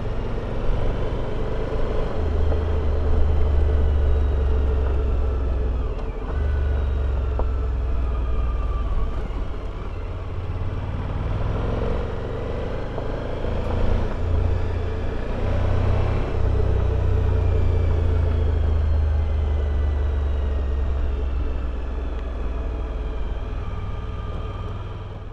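Motorcycle engine running under way, its pitch rising and falling with the throttle, over a heavy low wind rumble on the microphone.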